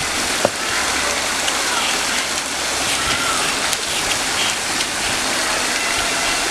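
Steady rush of a waterfall, with one sharp click about half a second in.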